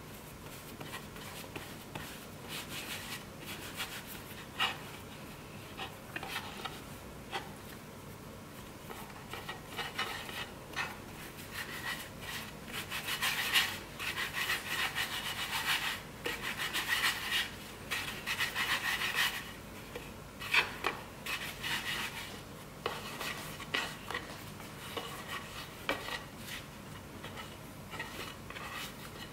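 Floured hands rolling dough into ropes on a wooden cutting board: a dry rubbing in uneven strokes, busiest in the middle, with a few sharp knocks.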